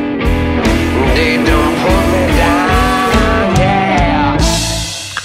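Electric blues band recording playing an instrumental passage: a lead line with bending notes over bass and drums, thinning out briefly near the end before the band comes back in.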